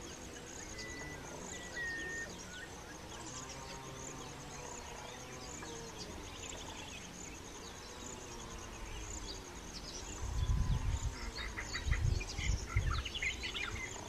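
Outdoor ambience with a steady, high-pitched insect trill and a few scattered bird chirps. Low rumbling bumps come in from about ten seconds in.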